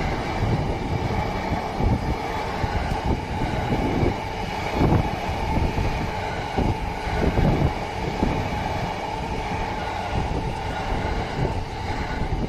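Yamanote Line E235-series electric train passing close by: a continuous rumble of wheels on rail with many irregular thumps as the cars run over the track.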